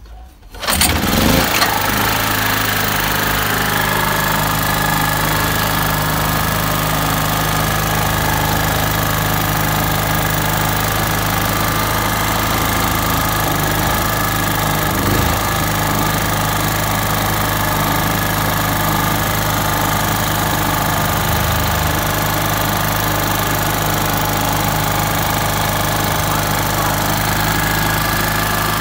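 Portable 2.5–2.8 kW generator's engine starting about a second in, then running steadily with no load on it while its output frequency is checked, the meter reading about 50 Hz.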